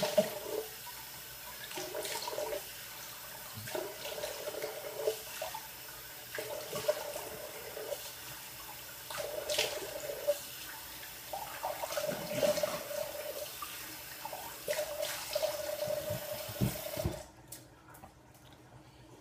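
Bathroom tap running into a sink with repeated splashes as the face is rinsed after shaving. The running water stops abruptly about 17 seconds in as the tap is shut off.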